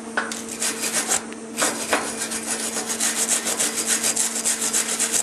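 Hand wire brush scrubbing back and forth over a freshly stick-welded steel tab to clean the slag off the weld. It starts with a few separate scratchy strokes, then quickens to a rapid scrubbing of about six strokes a second.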